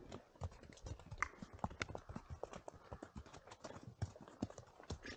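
Horses' hooves walking on a muddy trail: an irregular run of clip-clop steps, several a second.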